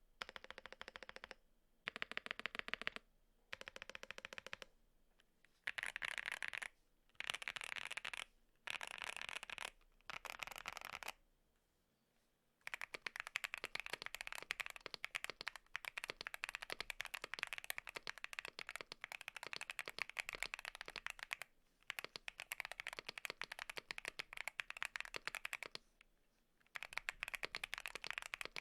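Mechanical keyboard typing test on Zuoce Studio Rococo tactile switches: short bursts of fast keystrokes on a QK65 board. After a pause about twelve seconds in, steady continuous typing starts on the same switches in a Bakeneko60.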